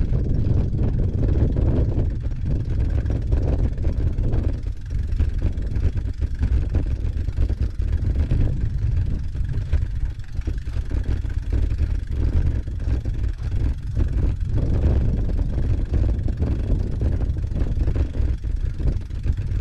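Wind buffeting the microphone of a handlebar-mounted camera on a bike ridden up a dirt trail: a loud, steady low rumble that flutters unevenly, with knocks and rattle from the tyres on the rough track.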